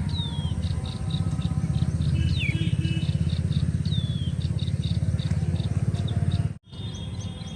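An engine running steadily with a fast low pulse, with high falling chirps repeating over it. The sound cuts out abruptly near the end and comes back quieter.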